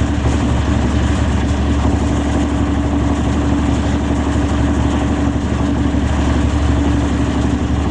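Victory Magnum motorcycle's V-twin engine idling steadily.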